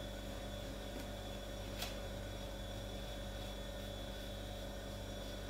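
Steady electrical hum and hiss of room tone, with one faint click about two seconds in.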